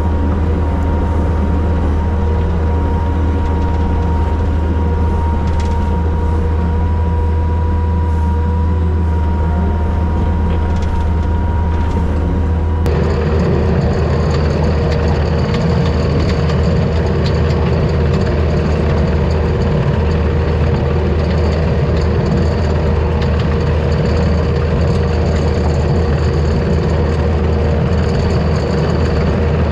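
Takeuchi TL250 compact track loader's diesel engine running steadily while it drives a hydraulic brush cutter through wet grass, a continuous engine hum with a steady high whine over it. The sound is heard from inside the cab at first, then changes abruptly about 13 seconds in to the sound heard from the front of the machine over the cutter deck.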